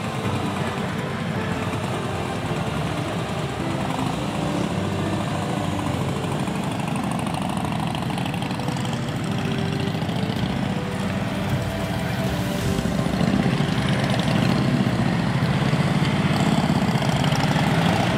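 Motorcycle engine running steadily at road speed while riding, getting louder about two-thirds of the way through.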